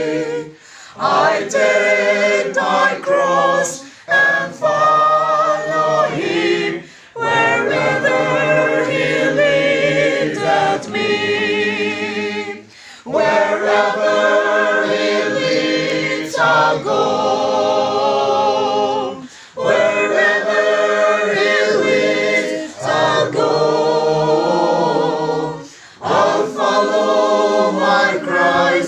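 A small mixed group of men and women singing a hymn together a cappella, in sung phrases of a few seconds with short breaks for breath between them.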